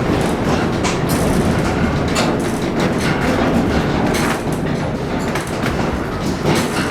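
Railway car heard from inside while rolling: a steady rumble with irregular clicks and knocks from the wheels and the car's fittings.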